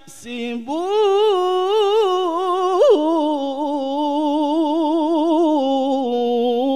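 A man reciting the Qur'an in the melodic tilawah style, holding one long, ornamented vowel. After a short breath his voice slides up to a high point about three seconds in, wavers in a quick vibrato, and settles on a lower held note near the end.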